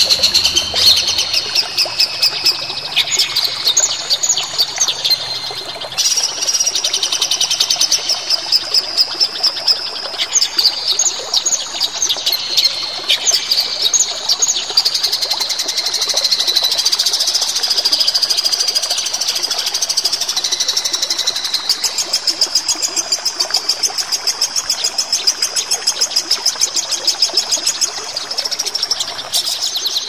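Songbirds singing without a break: high, rapid chirps and whistled phrases, overlapping, with a fast buzzing trill that takes over in the last third.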